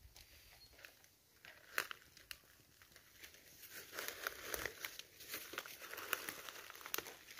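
Dry leaf litter and twigs crackling and rustling underfoot, irregular crackles that become busier from about four seconds in.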